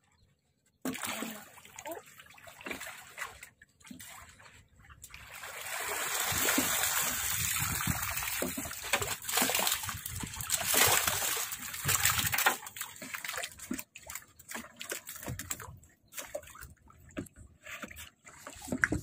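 Shallow water splashing and sloshing as a person wades and scoops with a hand net and bare hands. The splashes come irregularly, with a longer stretch of continuous sloshing in the middle.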